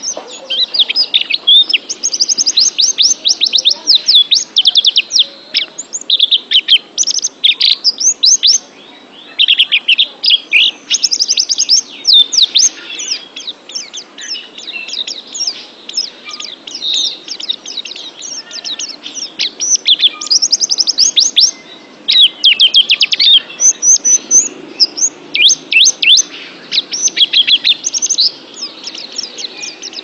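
White-eye (pleci) singing: fast runs of high, sharp chirping and twittering notes in bursts of a few seconds with brief pauses, over a faint steady hiss.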